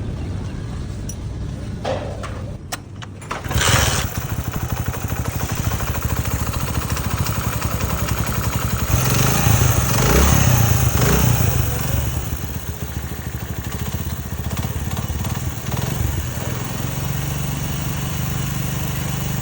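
Engine running at idle, dropping briefly before picking up sharply about four seconds in, revved around nine to eleven seconds in, then settling back to a steady idle.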